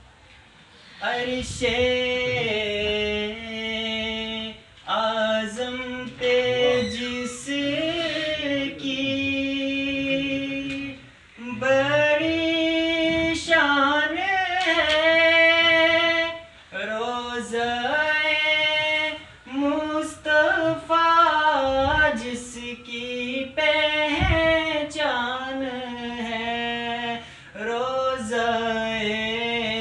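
A single voice sings a naat, a devotional poem in praise of the Prophet Muhammad, unaccompanied. It moves in long held, ornamented phrases with short pauses between them.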